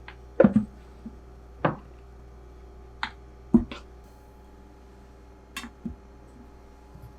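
Kitchen items being handled: about eight short clicks and knocks at irregular intervals, the loudest a double knock about half a second in and another about three and a half seconds in, over a steady low hum.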